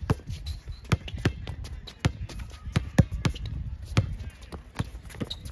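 Basketball being dribbled on an outdoor hard court: sharp bounces repeating at an uneven pace.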